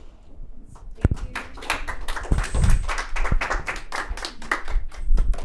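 Audience applauding with many quick hand claps, starting about a second in.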